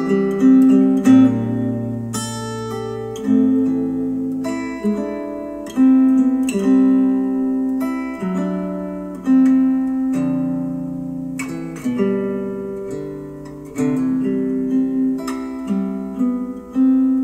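Instrumental acoustic guitar music, with plucked notes that ring out and fade and no singing, played back through Polk Audio XT15 bookshelf speakers driven by a Yamaha A-S301 integrated amplifier.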